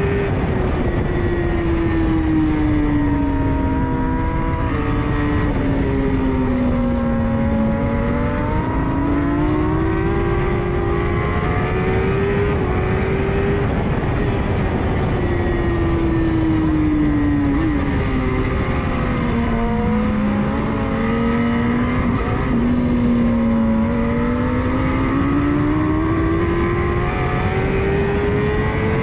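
Kawasaki ZX-10R inline-four sportbike engine at racing revs, heard on board under heavy wind rush. Its pitch sinks over the first eight seconds, climbs again, sags slowly to a low point about twenty seconds in, then climbs steadily through the last few seconds as the bike accelerates.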